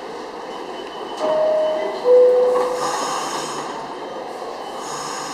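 Door-closing chime of an R68 New York City subway car: two steady tones about a second in, the second lower than the first. A hiss of air follows, over the steady hum of the train standing at the platform.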